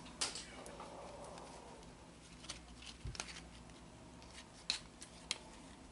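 Faint handling of Panini Adrenalyn XL trading cards taken from a just-opened pack: a soft rustle, then a few light, sharp clicks and taps as cards are moved and laid down.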